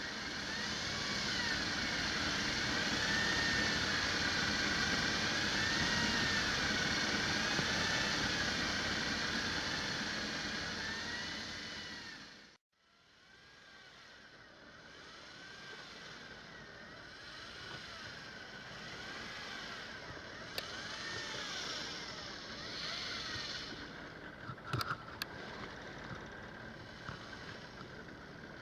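A motor running with a whine that wavers up and down in pitch. It cuts off abruptly about twelve seconds in, then resumes more quietly, with a few sharp clicks near the end.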